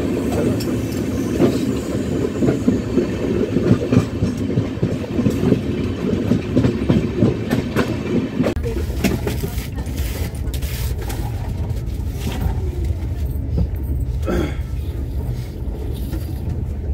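Train running on the rails with rapid wheel clatter. About halfway through it settles into a steadier low rumble with a few sharp clicks.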